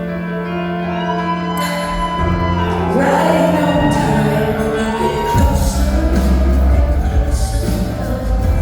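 Live concert music: held chords, then a woman singing from about a second in, with heavy low bass joining after about two seconds and growing fuller again past the middle.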